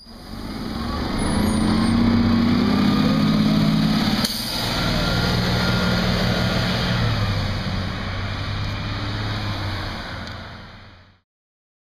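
Transit bus engine pulling away from a stop, climbing in pitch over the first few seconds with a sudden change about four seconds in, then running steadily as the bus moves off and fading out near the end.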